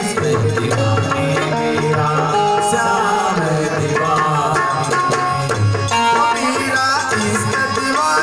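Instrumental passage of Indian folk devotional music: a dholak drum keeps a steady rhythm under a harmonium melody of held, stepping notes.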